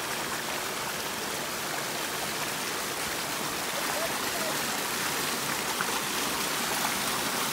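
Small woodland waterfall pouring over mossy rocks into a creek: a steady rush and splash of falling water, getting slightly louder toward the end.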